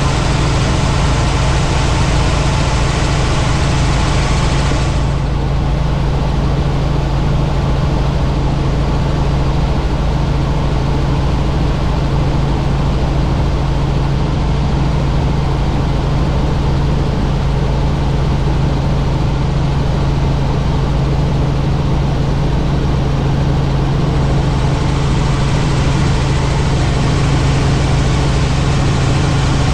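Helicopter engine and rotor noise heard inside the cabin in flight: a loud, steady drone with a strong low hum. The higher hiss fades about five seconds in and comes back near the end.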